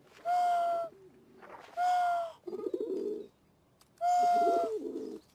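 A cupped-hand whistle blown in three short, steady hoots, each cut off cleanly. Pigeons coo in reply twice, after the second and third hoots.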